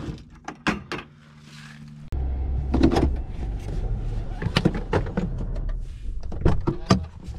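Handling sounds around a pickup truck: a few clunks as a bucket is set in the truck bed, then from about two seconds in a steady low rumble in the cab with a run of clicks and rustles as a seat belt is pulled across and buckled.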